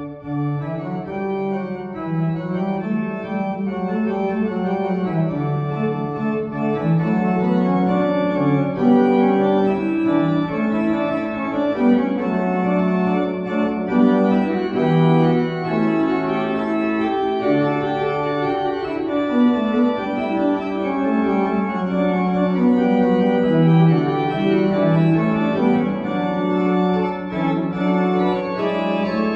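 Church pipe organ playing a continuous passage of many overlapping held and moving notes, at a steady, fairly full volume.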